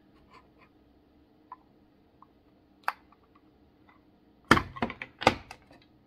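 Wooden puzzle box being opened and handled: a few light clicks, then several sharp wooden knocks in quick succession about four and a half seconds in.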